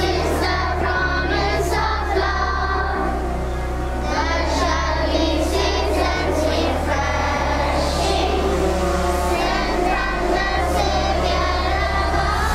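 Children singing a prayer song together over instrumental music, with a low bass note that changes every second or two.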